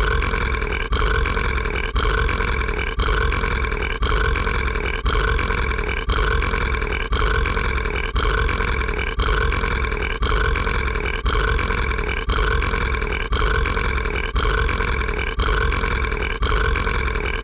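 An animated character's long, drawn-out burp, a short stretch of it looped over and over, with a slight break about once a second.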